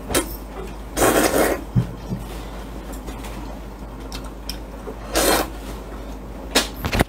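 Noodles being slurped up out of a spicy soup broth: a long slurp about a second in, another about five seconds in, and short sharp sucks near the end.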